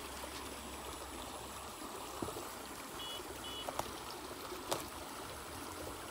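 Shallow muddy stream water running steadily, with a few short sharp knocks and splashes about two, three and a half and four and a half seconds in as the net is worked in the water.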